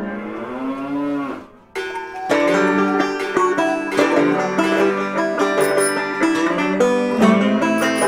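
Background music: a drawn-out sliding tone fades out about a second and a half in, then after a short dip, upbeat plucked-string music with a steady rhythm starts about two seconds in.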